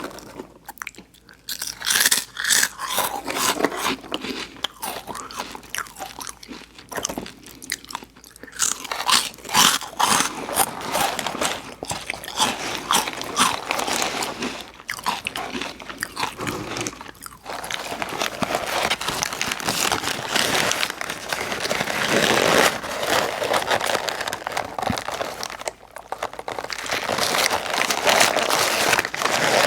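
Close-miked mouth sounds of a person biting into and chewing In-N-Out burger and fries, with a continuous run of crunchy, crackling bites and chewing.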